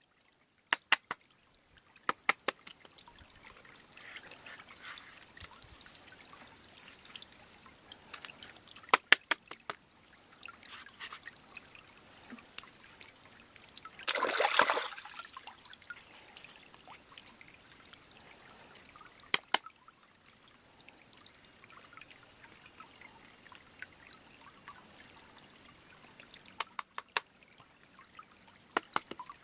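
Toys and plastic packaging being handled during an unboxing: scattered sharp plastic clicks and taps, with a louder rustle of packaging about halfway through.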